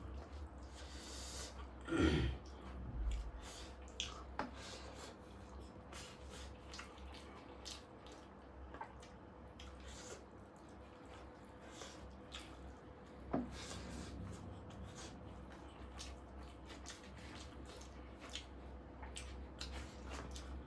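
Eating sounds close to the microphone: wet chewing and lip smacking with many small scattered clicks, and two louder short mouth sounds about two seconds and thirteen seconds in.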